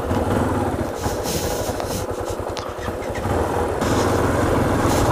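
Motorcycle engine running as the bike rides along a stony dirt road, pulling harder and getting louder about three and a half seconds in.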